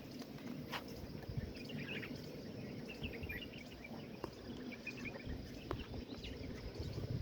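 Outdoor ambience: a low steady rumble with bursts of small birds chirping in the first half and a few faint clicks.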